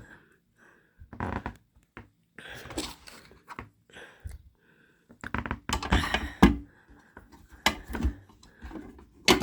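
Big shears and glass weights being set into the drawer of a small metal toolbox: a series of irregular knocks and clunks.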